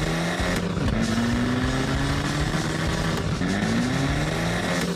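Monster truck engine sound effect accelerating through the gears: the pitch rises steadily, drops sharply at each shift, twice in the middle and once near the end, then climbs again.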